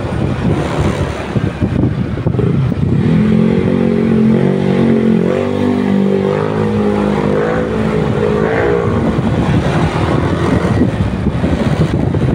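Motorcycle engine running while riding, with wind buffeting the microphone; a steady engine note stands out from about three seconds in until about nine seconds in.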